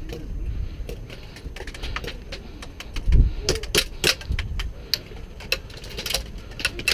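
Irregular sharp clicks and snaps of airsoft fire, thickest in the middle stretch, over a low rumble of wind on the microphone.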